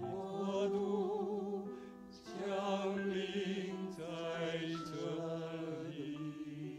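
Worship team of men and women singing a slow Mandarin worship song in long held notes with vibrato, over piano. The voices break off briefly about two seconds in, then come back in.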